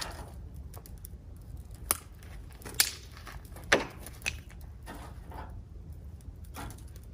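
Wood fire crackling over a low steady rumble, with four sharp pops between about two and four and a half seconds in.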